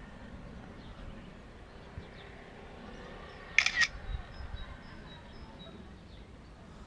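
Quiet background noise, with one brief sharp double click a little past halfway through.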